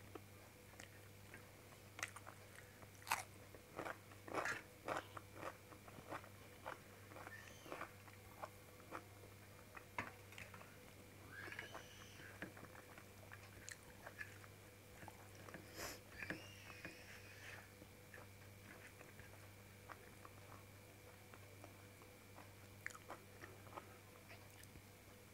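Close-up eating sounds of a person chewing mouthfuls of rice and shahi paneer eaten by hand: soft wet chewing with many short sharp clicks, thickest in the first ten seconds and sparser after, over a faint steady hum.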